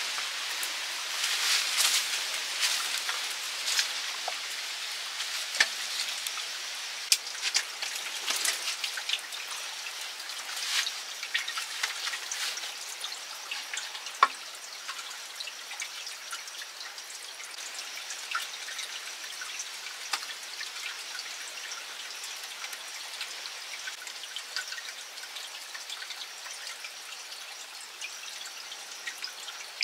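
Water dripping and trickling: irregular drips and light taps over a steady high hiss, busier in the first half.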